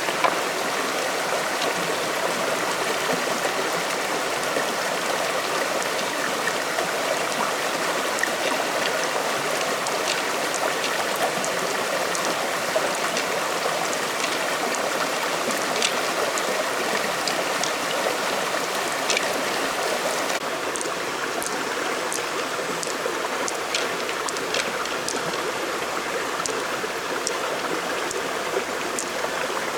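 Flowing floodwater of a stream, a steady rushing and splashing, with scattered small clicks through it.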